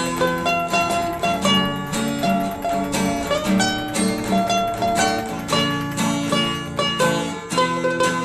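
Instrumental background music of quick plucked-string notes with a steady, bouncy rhythm.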